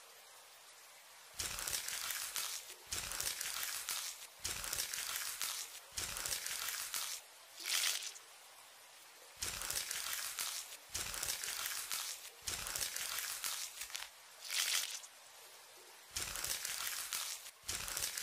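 Foley sound effects for a knife scraping through a mass of worms: a run of crackly, crinkling scraping strokes, each about a second long with short breaks between, a few of them sharper and louder.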